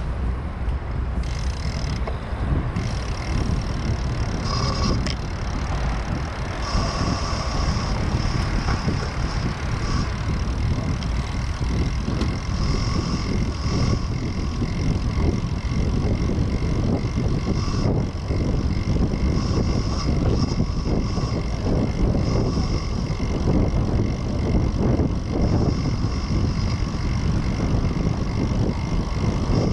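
Wind buffeting the microphone of a camera on a moving bicycle, a dense fluttering rush. Faint steady high tones come in about six seconds in.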